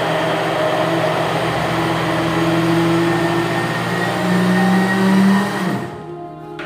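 Countertop blender running steadily, mixing yeast into a liquid pizza-dough batter. Its pitch rises a little near the end, then it winds down and stops about six seconds in.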